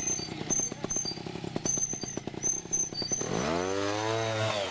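Two-stroke trials motorcycle engine ticking over at low revs with an even popping. About three seconds in it is revved hard, the pitch sweeping up and falling back: a throttle burst to lift the bike up a rock step.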